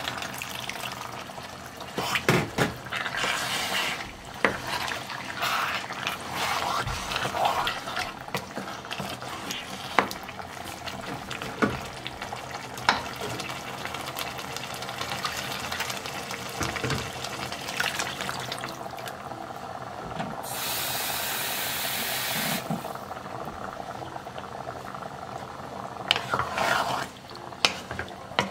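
Water poured from a bowl into a pot of spinach and beef tripe stew, then the stew simmering with small bubbling pops. A wooden spoon stirs the pot near the end.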